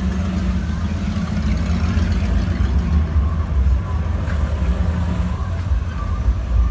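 Classic cars driving past one after another, their engines making a steady low rumble.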